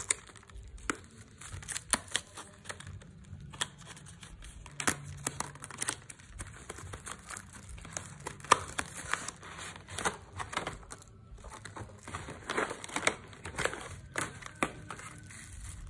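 Unboxing handling noise: a cardboard box being opened and its plastic tray slid out, with plastic wrapping and bubble wrap crinkling. Irregular rustles and clicks throughout, with one sharper click a little past the middle.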